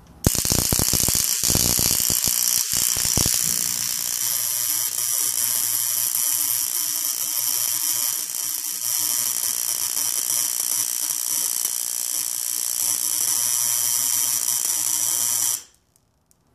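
Rapid crackling buzz of high-voltage sparks arcing at homemade salt-water and foil capacitor jars as they are charged and fire over and over, with sharp cracks in the first few seconds. It cuts off suddenly near the end.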